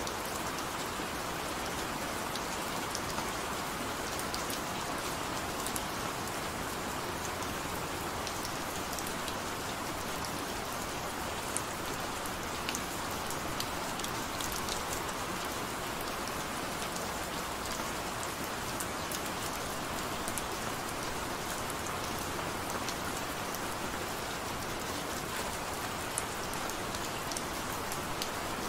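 Steady, gentle rain falling: an even hiss with scattered light drop ticks.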